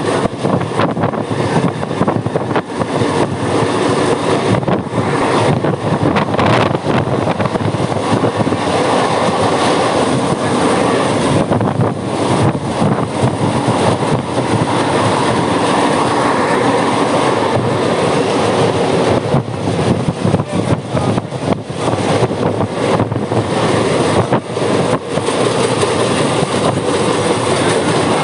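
Mumbai suburban local train running at speed: a steady loud rumble of the carriages, with rapid clatter of wheels on the rails.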